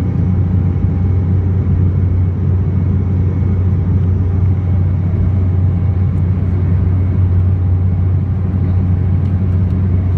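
Steady cabin drone of an Embraer E195 in flight, heard from a window seat over the wing: a strong low hum from its twin General Electric CF34-10E turbofans and the rush of air past the fuselage, with no change in level.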